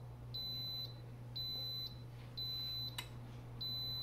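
Instant Pot electric pressure cooker beeping: a high beep about half a second long repeating roughly once a second, four times, as the Sauté function switches itself off, which the owner puts down to it reaching maximum pressure. A single sharp click about three seconds in.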